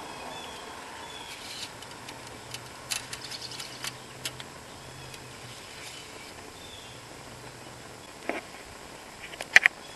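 Quiet outdoor background with faint bird chirps, broken by light clicks and a few sharper clicks near the end as the oil dipstick is handled in its tube.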